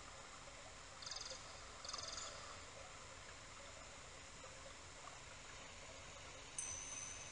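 Faint steady hiss with two short, high trilling chirps about a second apart, then a sudden high ringing tone that starts near the end and holds.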